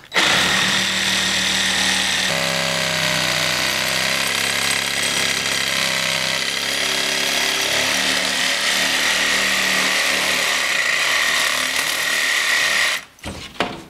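Reciprocating saw cutting through cement backer board, running without a break for about thirteen seconds with its motor pitch shifting a couple of times, then stopping.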